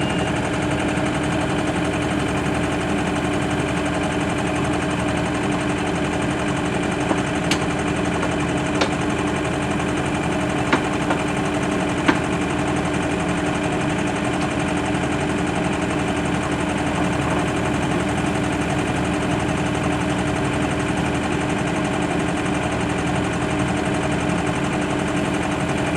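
Excavator's diesel engine running steadily at a constant pitch as it works to pull a stuck skid steer out of the mud. A few sharp clicks or clanks come through between about seven and twelve seconds in.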